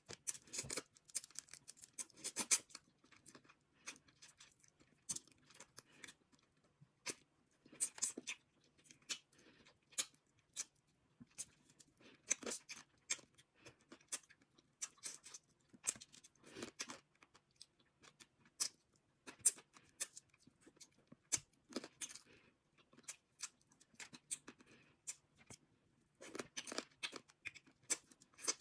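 Close-miked eating of a seafood boil: seafood shells cracking and tearing, with chewing, in a steady stream of irregular clicks and crackles.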